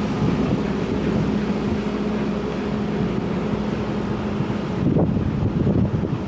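Wind buffeting the microphone, with a steady low machine hum underneath that fades out about five seconds in.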